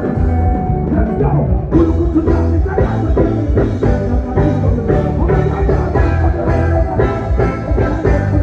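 Loud music with a steady drum beat and a heavy bass line.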